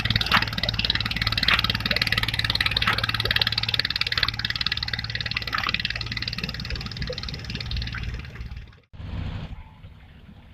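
An engine running steadily with a clattering rattle. About nine seconds in it cuts off abruptly, leaving a brief sound and then a much quieter background.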